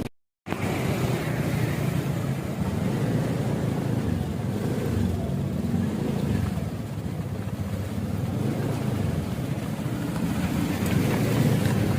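Steady low rumble of a running vehicle, cut off for a split second just after the start.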